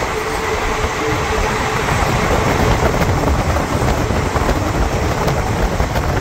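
Kumbh Express passenger train running along the line: a loud, steady rumble and rattle of the train in motion.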